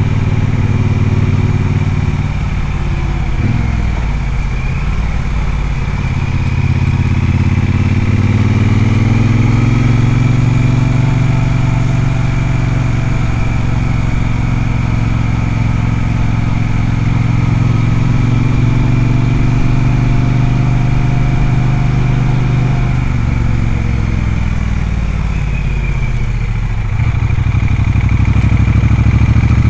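Triumph Speedmaster's parallel-twin engine running under a rider. The revs dip a few seconds in, climb to a long steady cruise, then fall away and settle low near the end.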